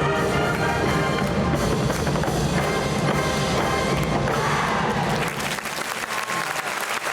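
School marching band of brass and drums playing its closing bars, the music ending about five seconds in, followed by a crowd beginning to applaud.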